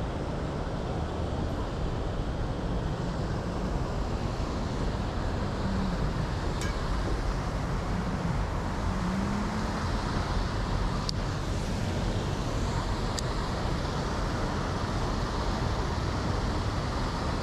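Steady outdoor noise of wind on the microphone over a city traffic hum, with a few faint clicks.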